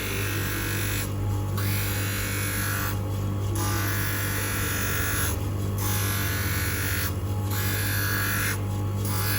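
Motor of a manual three-stone lens edging machine running with a steady hum, with a higher hiss that drops out briefly every second or two, alongside background music.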